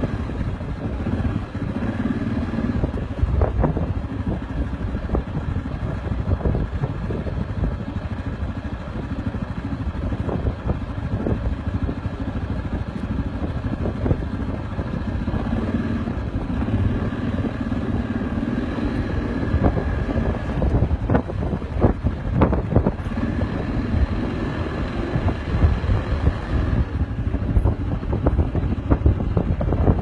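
Steady low rumble with irregular buffeting, typical of wind on a phone's microphone outdoors.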